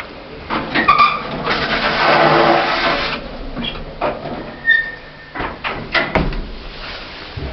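An old lift being worked, which the owner takes for a modernised Hammond Champness: a sliding rush lasting about a second and a half, from its door or its pull-across barrier, with clicks and clunks before and after it.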